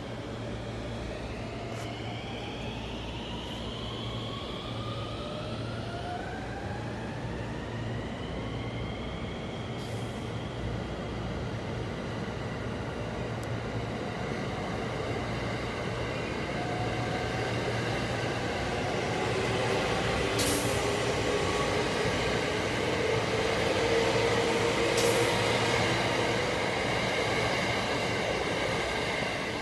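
JR West 285 series "Sunrise Express" sleeper electric train running through a station without stopping: a steady rumble of wheels on rail, with a whine that rises in pitch over the first several seconds. It grows louder as the cars pass close, and two sharp clicks come near the end.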